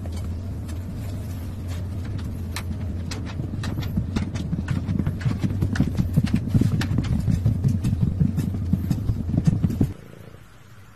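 Wooden cat exercise wheel rolling with a kitten running inside: a steady low rumble with a quick patter of paw thumps. The rumble grows louder about halfway and stops abruptly near the end.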